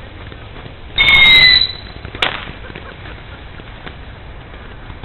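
A firework whistling shrilly for about half a second, then a single sharp bang about a second later.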